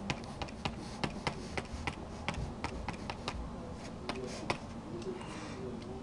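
Light, irregular clicks and taps of a stylus on a graphics tablet, about three or four a second, as brush dabs are stamped and brushes are picked.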